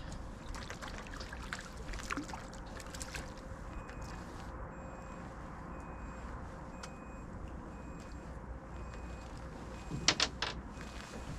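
Small boat sitting on open water: a steady wash of wind and lapping water, with light clicks of fishing tackle being handled and a cluster of sharp knocks about ten seconds in. Faint evenly spaced pips are heard in the middle.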